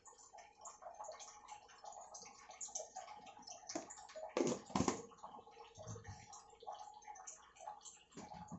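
Onions frying in oil in a kadai on low flame, a faint steady sizzle and crackle. Two soft knocks come near the middle.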